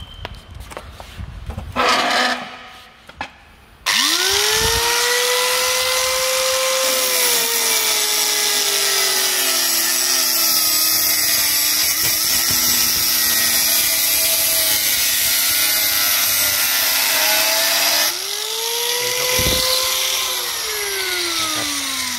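ENZO 954 4-inch, 700-watt angle grinder with a cutting disc. After a few handling knocks it is switched on and whines up to speed, then its pitch sags and wavers for about ten seconds as the disc cuts through square steel tubing. It stops, is started again briefly, and winds down with a falling whine near the end.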